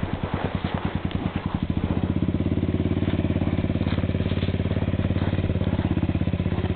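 ATV engine labouring up a steep dirt hillclimb, running in slow even pulses at first, then picking up to a faster, steadier beat about two seconds in.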